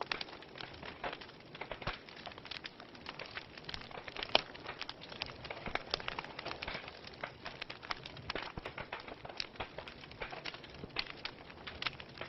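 Wood fire in a fireplace crackling, with irregular snaps and pops over a soft hiss; one louder pop about four seconds in.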